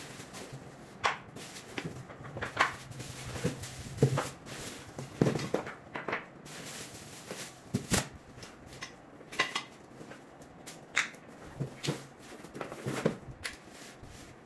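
Cardboard and plastic wrapping rustling, with irregular knocks as computer-chair parts are lifted out of a cardboard box and set down on a tiled floor.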